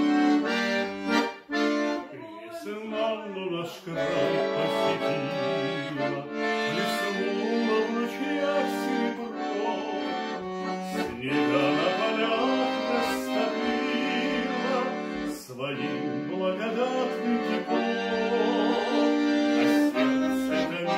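Piano accordion playing a tune over held chords, with a few short breaks between phrases.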